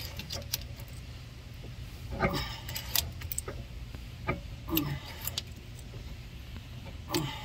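Metallic clinks and ticks from a screw-type brake caliper piston compressor being wound in against the rear caliper piston to push it back into its bore. A short falling creak comes roughly every two and a half seconds, over a steady low hum.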